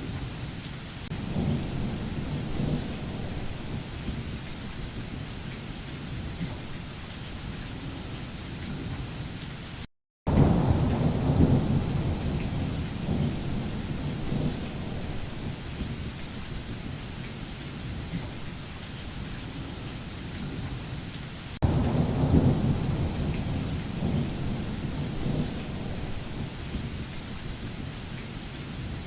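Steady rain with rolls of thunder: low rumbles swell about a second in, again right after a brief dropout about ten seconds in, and a third time starting suddenly about 22 seconds in, each fading slowly under the rain.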